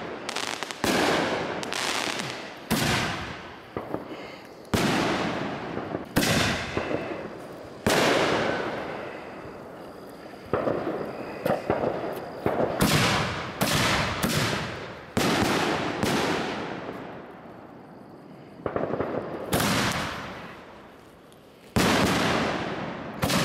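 Consumer aerial fireworks bursting one after another, a sharp bang every second or two, each fading out over a second or more, with a few quicker clusters of bangs.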